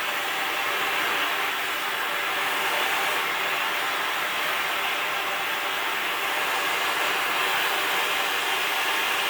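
Gas torch flame burning with a steady hiss, heating chunks of truck-axle steel toward cherry red to anneal them.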